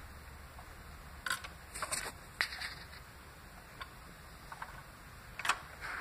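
Turntable with the music over: a low steady motor hum under faint hiss, broken by a cluster of sharp clicks and small knocks between about one and three seconds in and another near the end, as the tonearm lifts off the record's run-out groove and swings back to its rest.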